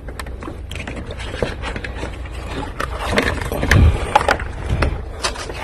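Hand tools and car parts clicking and knocking irregularly over a steady low hum, with the loudest knocks about three to four seconds in.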